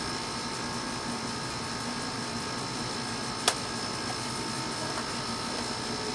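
Steady machine-like background hum with a few unchanging tones, and one sharp click about three and a half seconds in.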